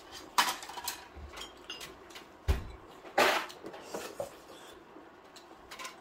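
Metal tongs and chopsticks clicking against the metal serving tray and dishes during a meal: scattered sharp clinks, a dull thump about two and a half seconds in, and a brief louder rasp just after it.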